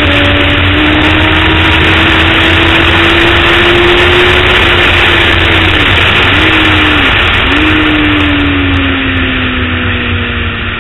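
Sport motorcycle engine at speed on a race track, heard from an onboard camera: the engine note climbs slowly, dips sharply twice a little past halfway, then falls steadily as the bike slows. Heavy wind rush on the microphone.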